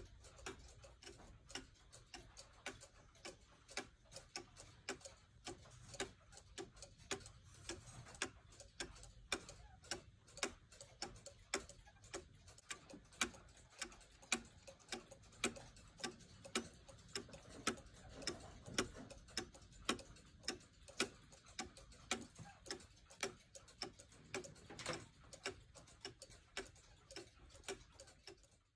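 An antique cuckoo clock ticking steadily, the escapement of its brass movement beating evenly while the clock runs on test.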